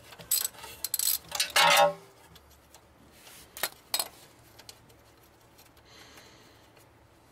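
Hand socket ratchet clicking in quick strokes as the small 10 mm brake-line bracket bolt is backed out, followed by a short pitched squeak about one and a half seconds in and two light metallic clicks a few seconds later.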